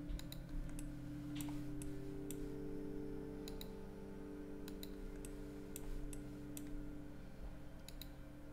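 Computer mouse clicking: about a dozen short, sharp clicks at irregular intervals, some in quick pairs, as lines are drawn with the SketchUp pencil tool. A steady low hum runs underneath.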